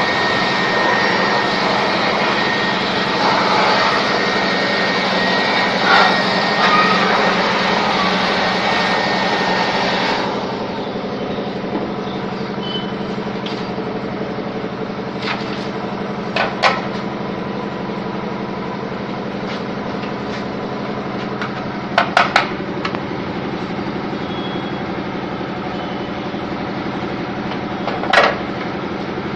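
A small electric motor running steadily with a low hum. A loud rushing hiss over it stops about ten seconds in. After that there are a few sharp clicks, three of them close together about two-thirds of the way through.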